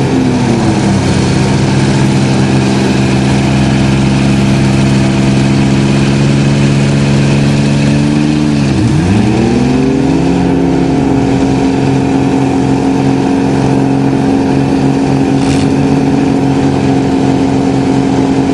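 Several vehicle engines, a school bus and rear-wheel-drive pickups and cars, held at steady high revs while pushing against each other, with wheels spinning in the dirt. About nine seconds in one engine's revs drop sharply and climb straight back up.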